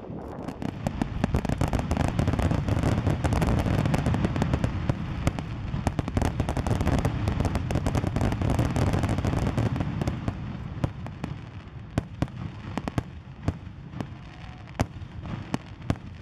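Aerial fireworks display: a dense barrage of shell bursts with crackling over a heavy rumble, thinning after about ten seconds to single sharp bangs roughly a second apart.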